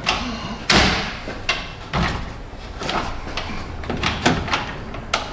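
Hard plastic knocks and clunks as a plastic active grille shutter assembly is pushed and worked into its mounting frame. The knocks are irregular, and the sharpest comes about a second in.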